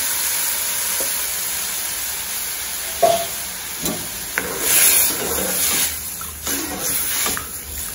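Kuzhambu liquid poured into a pan of hot tempering oil and spices, sizzling and bubbling steadily. A few sharp metal clicks come about three to four seconds in, and a steel ladle stirs in the pan near the end.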